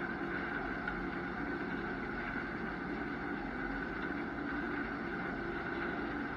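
Large diesel engine of harvest farm machinery running steadily under load: a continuous drone with a higher steady hum over it.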